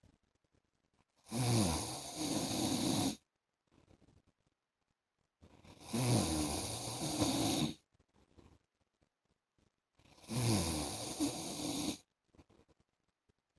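A sleeping man snoring: three long snores, each about two seconds, coming about every four and a half seconds with near-silent pauses between. Each snore starts with a falling pitch.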